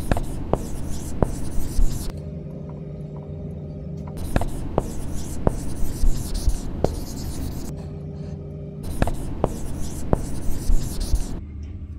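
Marker pen writing on a glass window: three bursts of strokes with sharp taps as the tip meets the glass, over a steady low hum.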